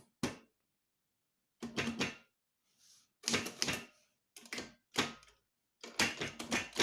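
Manual typewriter being typed on: runs of quick key strikes in several short bursts, with brief pauses between them.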